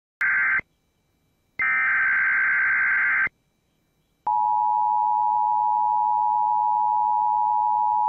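Emergency Alert System broadcast tones for a Child Abduction Emergency: the end of one SAME digital header burst and then a second full burst, both harsh buzzing data screeches, separated by silence. About four seconds in, the steady two-tone EAS attention signal starts.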